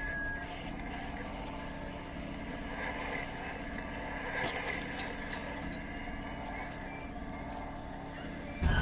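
Steady low droning ambience with a few faint ticks scattered through it.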